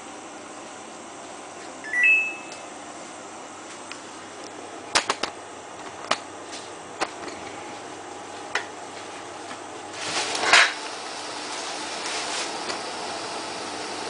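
Samsung WF8804RPA washing machine starting its cycle. About two seconds in the Start button gives a short two-note rising beep. A few sharp clicks from the machine follow, then a louder burst of noise about ten seconds in, after which a steady low running noise rises slightly.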